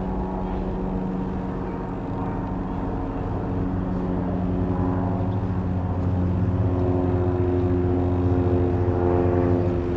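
Piper PA-28-180 Cherokee's four-cylinder Lycoming O-360 piston engine and propeller droning as the light aircraft flies overhead. The pitch drops slightly about three seconds in, and the drone grows louder over the second half.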